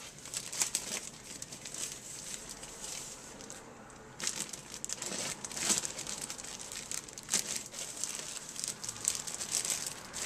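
Clear plastic produce bag crinkling and crackling as it is gripped and handled, with a brief lull a little under four seconds in.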